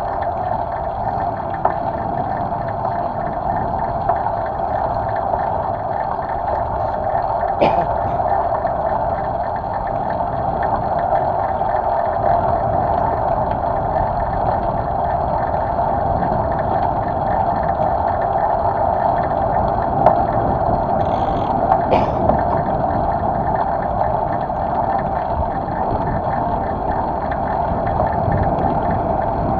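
Steady wind rush and road noise from a bicycle moving along a street, heard through a handlebar-mounted camera, with brief knocks about eight and twenty-two seconds in.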